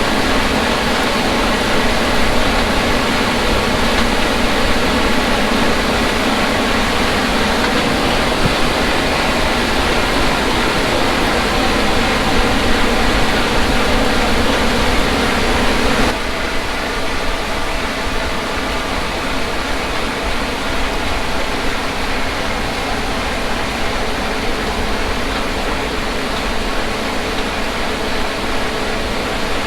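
Combine harvester running steadily at full work while cutting wheat: a dense, constant mechanical noise of engine and threshing machinery. About halfway through the sound changes abruptly and becomes slightly quieter and duller.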